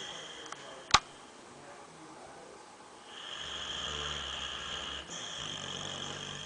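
Dog snoring in its sleep: a long hissing breath starts about three seconds in, breaks briefly near five seconds and goes on. A single sharp click sounds about a second in.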